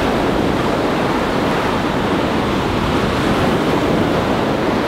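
Ocean surf breaking and washing up onto the sand at the shoreline: a steady rushing of waves.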